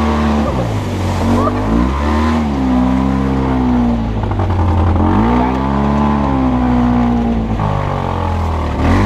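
Off-road vehicle's engine revving up and down several times, its pitch climbing and falling every couple of seconds.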